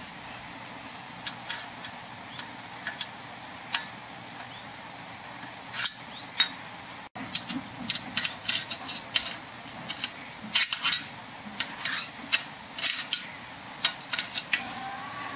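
Light metal clicks and taps of an Allen key knocking and scraping against a bicycle's front derailleur clamp and steel frame, irregular, sparse at first and coming much thicker from about halfway on.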